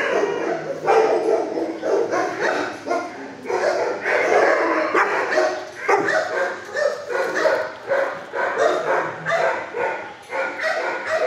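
Shelter dogs barking and yipping without let-up, many calls overlapping at once.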